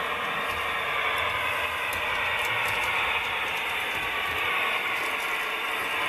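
HO scale model diesel locomotive running along the track, its small electric motor and gears making a steady whirr.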